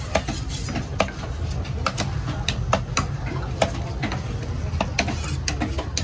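Large knife chopping through fish fillet onto a wooden log chopping block: sharp, irregular knocks, about one or two a second, over a steady low rumble.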